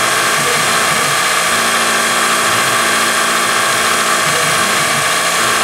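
Syil X3 CNC mill's spindle running with a small engraving cutter working an aluminium bar: a steady, unchanging whine of several tones over a hiss.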